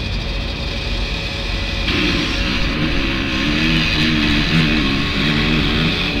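A pack of motocross bikes accelerating off the start gate, engines running hard. From about two seconds in, the engine notes rise and fall over and over as the bikes pull away.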